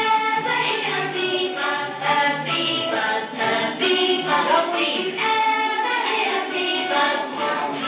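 A children's song playing: several singing voices over music.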